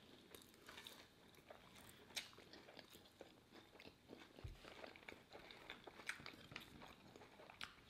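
Faint eating sounds: quiet chewing, with scattered small crunches and mouth clicks as bites of burger and fried food are chewed.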